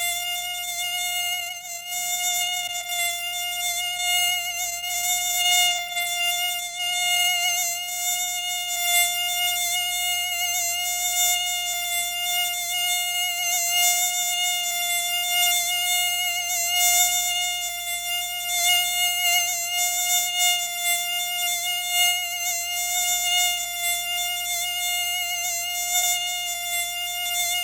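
Mosquito whining in flight: one steady high-pitched buzz from its wingbeat, rich in overtones, holding the same pitch while its loudness wavers slightly.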